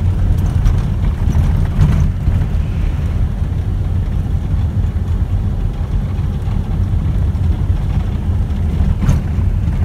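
Steady low rumble of a moving vehicle's road and engine noise, heard from inside. A few brief knocks come in the first two seconds and one near the end.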